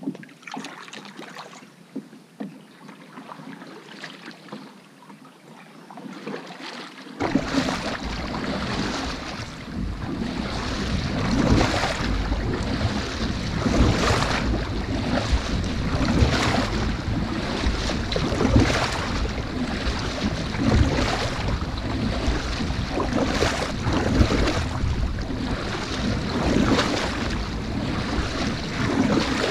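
Double-bladed kayak paddle stroking through the water, a splash surge about every two seconds, with water rushing along the hull and heavy wind noise on the microphone. The first several seconds are quieter, with only light drips and splashes before the full strokes and wind come in.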